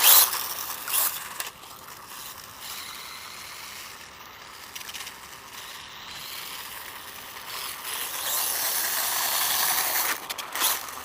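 Brushless RC dirt bike's motor and drivetrain whirring as the bike runs, getting louder from about eight seconds in.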